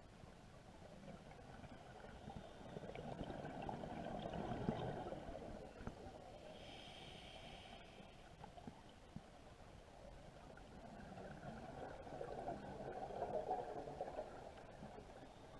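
Scuba diver breathing through a regulator underwater: two long bubbling exhalations, with a brief hissing inhale between them about seven seconds in.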